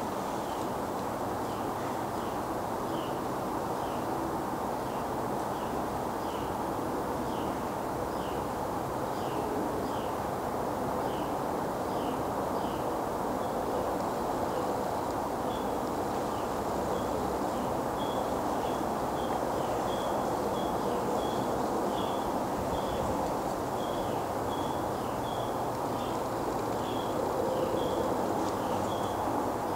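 Steady outdoor background noise with a single high chirp repeated about once or twice a second, coming faster and more regularly from about halfway through.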